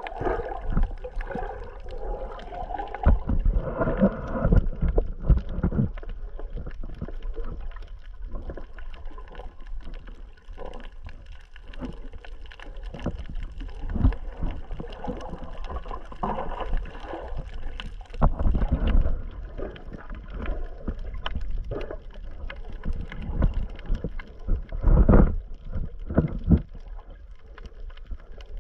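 Water sloshing and gurgling around a camera held underwater while snorkeling, muffled, with irregular low surges and thumps over a steady rush.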